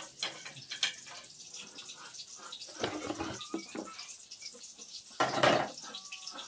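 A knife and plastic kitchenware being handled: light knocks and scrapes, with a louder clatter about five seconds in.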